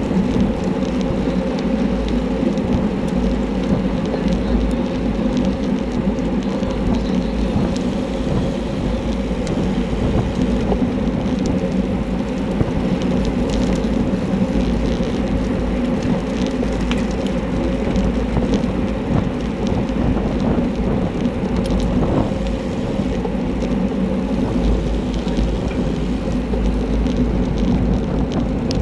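Wind buffeting the microphone of a handlebar-mounted camera on a bicycle at racing speed, heard as a steady low rumble mixed with tyre and road noise.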